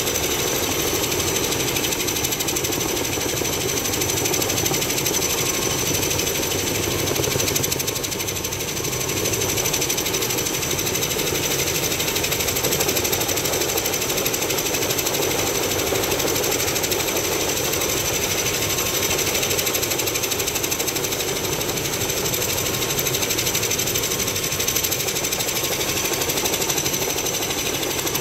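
Helicopter running close by: a steady, rapid rotor chop with a thin high whine over it.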